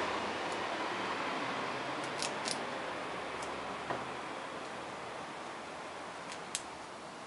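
Road noise of a passing car fading away as it recedes, with a few sharp, high-pitched ticks scattered through it, two close together about two seconds in and two more near the end.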